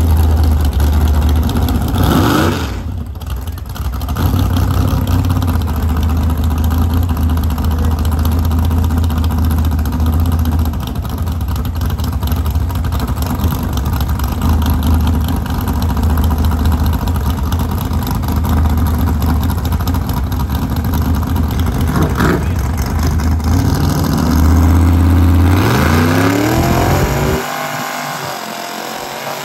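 Car engine and exhaust running with a loud, steady low drone. Near the end the pitch climbs as it revs, then the drone cuts off suddenly.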